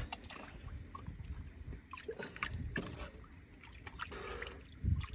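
Shallow water sloshing and trickling as an arm gropes underwater in a rock-pool crevice, feeling for fish by hand, with scattered small splashes and clicks.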